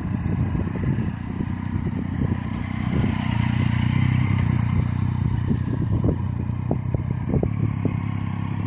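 Triumph Street Triple R 675's inline three-cylinder engine running at low revs as the bike circles slowly in a parking-lot drill. It gets louder as the bike passes close by in the middle, then eases off as it moves away.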